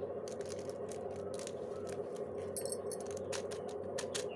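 Scattered light clicks and small metallic clinks over a steady low hum.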